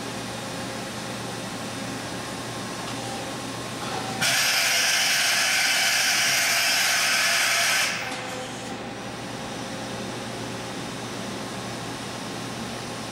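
Kuraki KV-1000 vertical machining center running with a steady hum; about four seconds in a loud, even hiss starts abruptly, holds for nearly four seconds and cuts off sharply.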